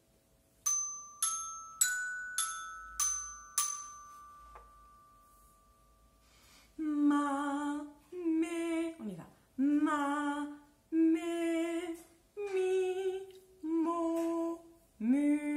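A small glockenspiel struck six times with a mallet, about two notes a second, the metal bars ringing on and fading out. Then a woman hums a melody of about eight held notes.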